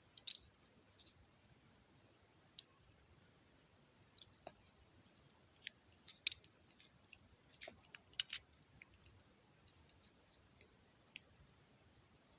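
Plastic LEGO bricks clicking as they are handled and pressed together: scattered sharp clicks at irregular intervals.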